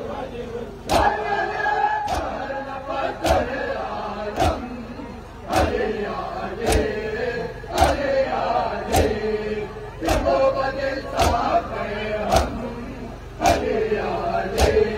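A crowd of men doing matam, striking their chests in unison about once a second, while male voices chant a nauha over the strikes.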